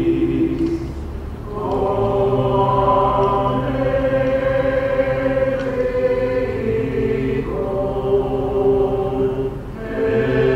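Greek Orthodox Byzantine chant: voices singing long held notes, a low sustained note beneath a slow melody. There are short breaks between phrases about a second and a half in and near the end.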